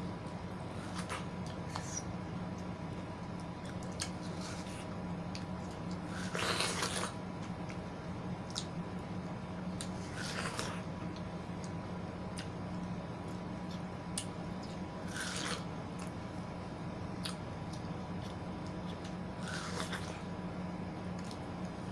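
Close-up mouth sounds of people eating juicy watermelon: four wet biting and slurping sounds a few seconds apart, with small smacking clicks between them. A steady low hum runs underneath.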